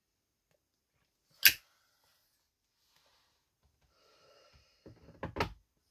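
A single sharp click about a second and a half in. Near the end, a man puffs on a Peterson tobacco pipe, with faint wheezy draws and several quick lip pops on the stem.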